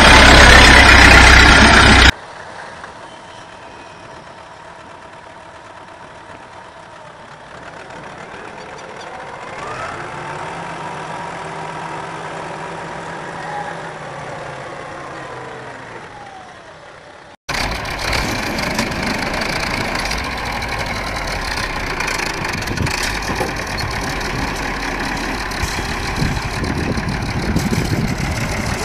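Engines of farm machinery in separate clips, changing abruptly at two cuts. First a tractor engine running loud for about two seconds. Then a much quieter stretch of a combine harvester's engine, its pitch rising and falling. From about seventeen seconds in, a tractor engine running steadily as it is driven through deep mud.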